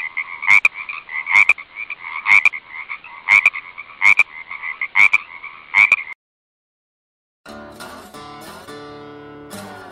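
A steady, pulsing high-pitched drone with a sharp click about once a second, which cuts off abruptly about six seconds in. After a second and a half of silence, strummed and plucked guitar music begins.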